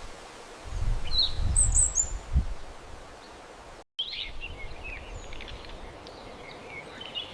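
Wild birds chirping over outdoor ambience. A low rumble sounds for about two seconds early on, then the sound drops out for an instant and a new stretch of ambience follows, with scattered short, high chirps.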